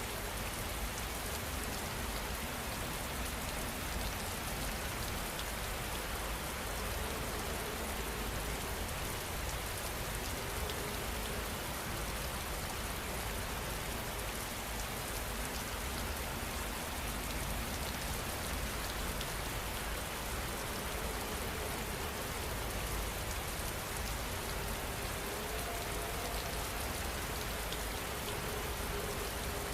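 Steady rain falling and pattering on a surface, with many fine individual drops.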